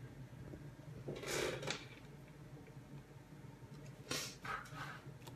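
Things being handled on a desk: two short bouts of rustling and knocking, about a second in and again about four seconds in, over a low steady hum.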